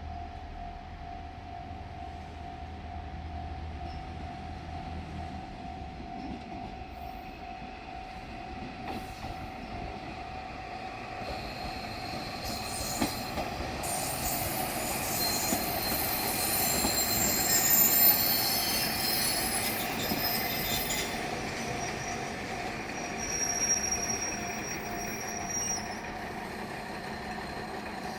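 Two-car KiHa 40-series diesel railcar set passing slowly, with a steady rumble. Its wheels squeal in several high ringing tones for about ten seconds from near the middle, loudest about two-thirds of the way in.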